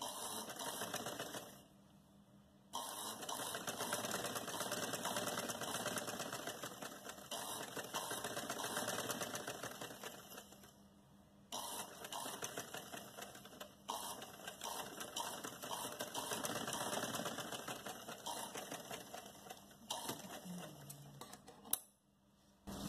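Sewing machine stitching a seam through cloth in long runs of rapid needle strokes. It stops briefly about a second and a half in and again around ten seconds, and there is a sharp click near the end.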